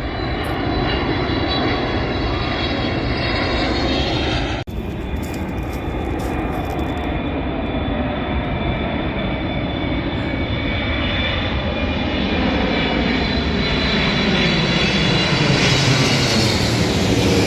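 Airplane flying low overhead: a steady engine roar with several high whining tones, growing louder toward the end. There is a brief dropout about four and a half seconds in.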